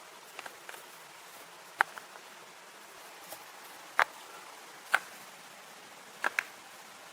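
Several short, sharp clicks or knocks at uneven intervals, over a steady background hiss: a few faint ticks in the first second, then louder knocks about two, four and five seconds in, and a quick pair near the end.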